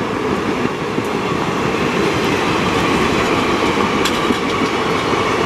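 Passenger train of ICF coaches running on the track, a steady rumble with the wheels clattering over the rails and a few sharp clicks about a second in and around four seconds in.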